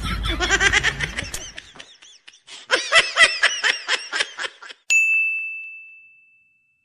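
Laughter in two bouts of rhythmic ha-ha syllables, then a single bright ding that rings on one steady pitch and fades away.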